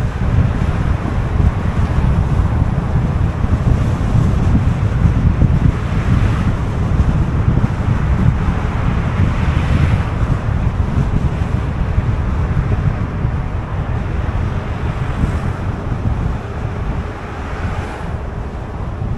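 A car driving on city streets: a steady low rumble of road and wind noise, with wind buffeting the microphone and a few brief swells in the hiss.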